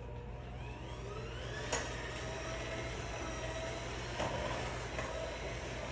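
Electric mixer beating a stiff cake batter: the motor whine rises in pitch as it speeds up over the first couple of seconds, then runs steadily, with two short knocks of the beaters against the bowl.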